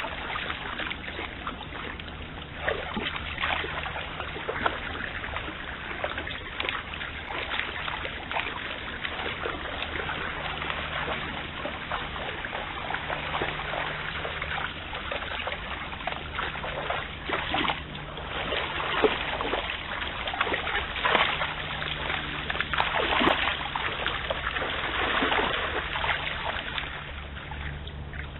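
Red deer wading through a flooded stream, their legs splashing and sloshing in the shallow water in irregular bursts, busiest in the second half. A steady low hum runs underneath.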